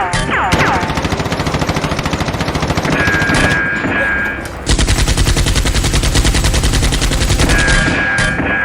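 Rapid automatic-gunfire sound effect: a fast, even rattle of shots that turns louder and denser about halfway through and stops shortly before the end.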